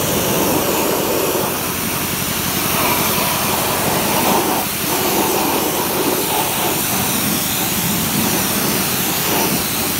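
Ultrajet high-pressure waterjet lance blasting a water jet onto galvanized steel angle bars: a steady, loud hiss of spray.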